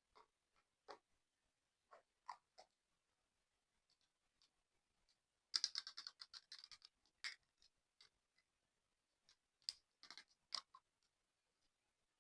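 Slime being squished and pulled by hand, making soft sticky clicks and pops. About halfway through comes a quick run of crackling pops, and a few sharper pops follow near the end.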